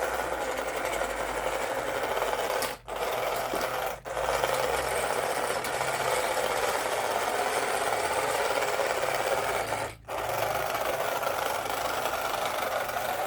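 Small electric gear motors of a cardboard remote-control excavator whirring steadily. The whir cuts out briefly three times: near three seconds in, at about four seconds, and at about ten seconds.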